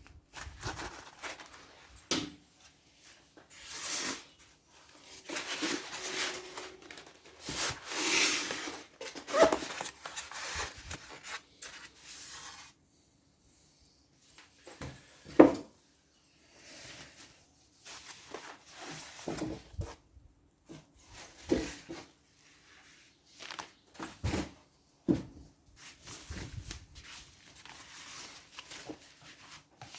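Unboxing handling noise: packaging being rubbed, slid and torn in irregular strokes, with several sharp knocks, the loudest about halfway through.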